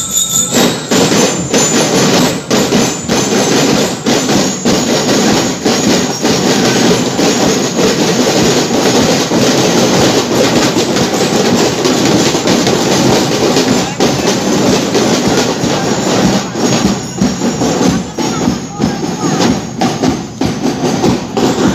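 School marching drum corps playing snare and bass drums as it marches past, a loud, dense, continuous rattle of drumming.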